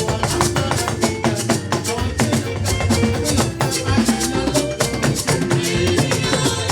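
Church hymn music with a drum kit and hand percussion keeping a steady, busy beat under held instrumental notes, with voices singing.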